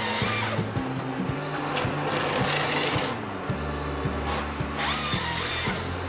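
Background music with a steady bass line, over which a harsh machine noise like a power saw cutting comes in short bursts about every two and a half seconds.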